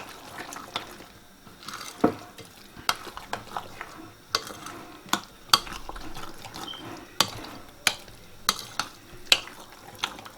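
A spoon stirring a wet yogurt raita in a bowl. The mixture makes a soft scraping churn, with about a dozen sharp clinks at an uneven pace as the spoon knocks the side of the bowl.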